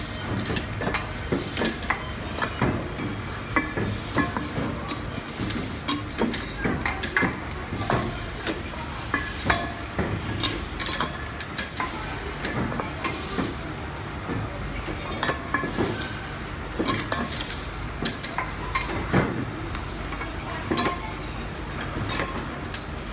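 Stainless-steel vacuum flasks clinking and knocking at irregular moments as they are handled and rolled through a running bottle labeling machine, over a steady machine hum.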